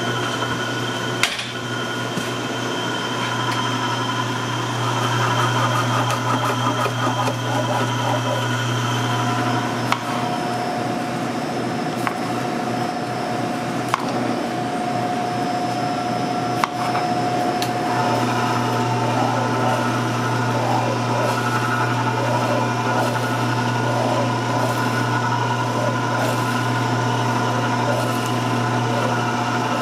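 Electric deli slicer's motor running with a steady hum as its blade slices tomatoes and pickles. The hum drops away for several seconds in the middle, with a few sharp knocks, then comes back.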